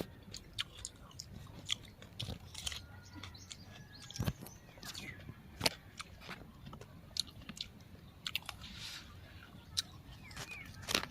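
Close-up chewing and biting of raw fresh vegetables, with irregular crisp crunches and mouth clicks.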